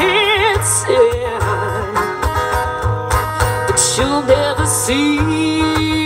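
Live country band: a singer holding notes with a wide vibrato, the last one long, over strummed acoustic guitar, bass and drums.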